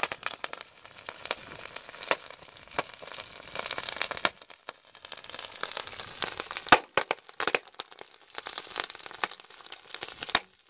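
Chunks of sodium metal reacting on a pond's surface, fizzing and crackling with many sharp pops, the loudest about two-thirds of the way through. The sodium reacts with the water to give off hydrogen, which ignites in small bursts.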